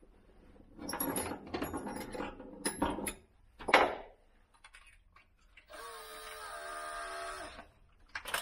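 Clicks and handling clatter with a sharp knock, then an electric drill runs steadily for about two seconds near the end.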